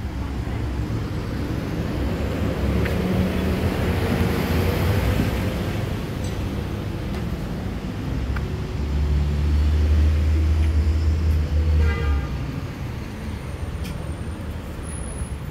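Street traffic: engines of cars and a heavy vehicle passing, with a deep rumble that is loudest from about nine to twelve seconds in, and a short toot near the end.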